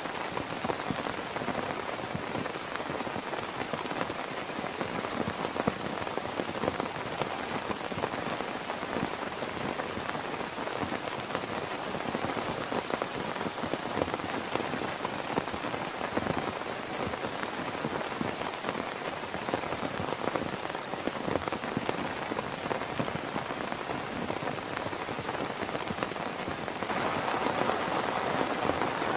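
Heavy rain falling steadily, a dense hiss made of countless individual drops striking a surface. About 27 s in, it grows louder and fuller in the mid range.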